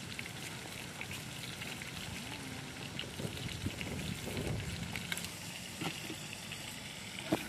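Pieces of meat frying in deep hot oil in a wok on a portable gas stove: a steady sizzle with many small crackles and pops. A single sharp click near the end.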